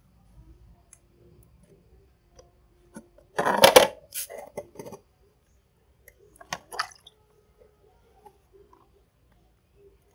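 Kitchenware clattering as things are moved about on a work surface: a burst of clinking and knocking a few seconds in, the loudest sound, and a shorter one a few seconds later, with quiet handling in between.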